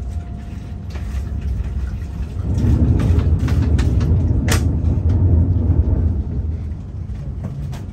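Renfe high-speed train rolling over the tracks, heard inside the carriage: a steady low rumble that grows louder about two and a half seconds in and eases off near the end, with one sharp click about halfway through.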